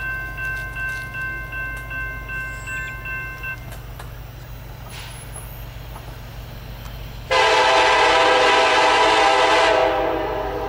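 A bell ringing rapidly, about three strokes a second, stops about three and a half seconds in over a steady low rumble. About seven seconds in, the horn of the approaching Union Pacific SD70ACe lead locomotive sounds one long, loud blast of about two and a half seconds.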